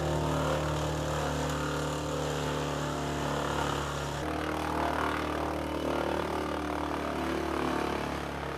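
Morbark tow-behind wood chipper running, its engine holding a steady pitch while branches are fed in and chipped.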